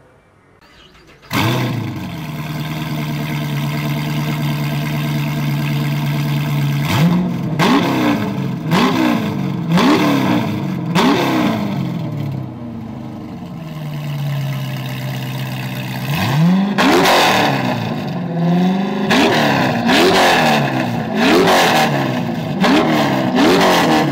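Mazzanti Evantra's V8 engine, with the car standing still. It starts abruptly about a second in and idles with a steady note. It is then revved in short throttle blips, about five in a row, settles back to idle, and is blipped again several more times near the end, each rev rising and falling quickly.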